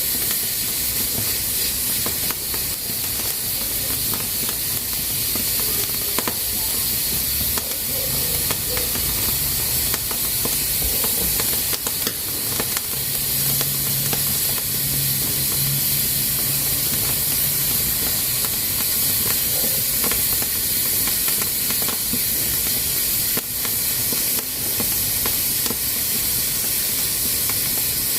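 Pressure cooker hissing steadily as steam escapes through its valve, a continuous high hiss with a few faint ticks. A faint low hum comes in briefly around the middle.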